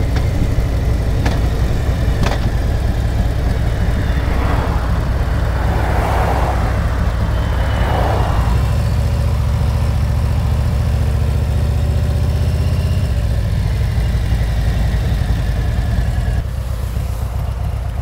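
Harley-Davidson V-twin motorcycle engine running steadily under way, heard from the rider's seat. A rushing noise swells twice around the middle, and the engine gets quieter near the end.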